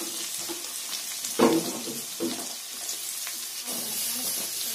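Chopped onions and curry leaves sizzling in hot sesame oil in a metal pan, sautéing on their way to brown, with a few scrapes of a spatula stirring them.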